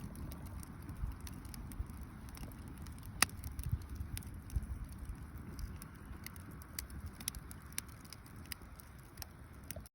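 Campfire crackling, with scattered sharp pops over a low rumble, one much louder pop about three seconds in. The sound cuts off just before the end.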